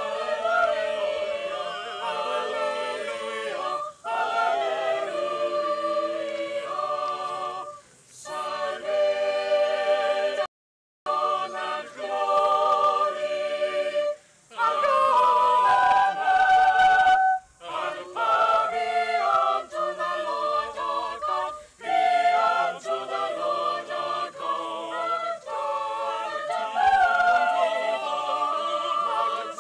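Church choir of boys' and men's voices singing, phrase by phrase with short breaks between phrases. The sound cuts out completely for about half a second near the middle.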